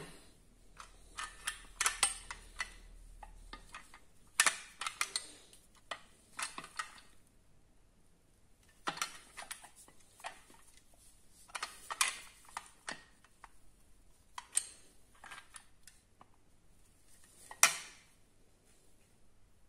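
Irregular clicking and clattering of small hard objects being handled, in short clusters with pauses between them and one sharper knock near the end.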